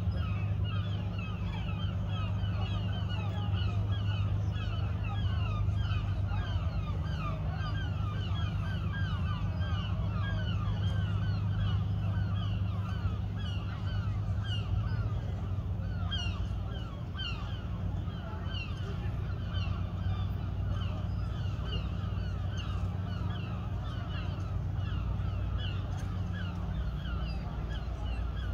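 A crowd of seabirds calling without pause, many short falling calls overlapping, over a steady low hum.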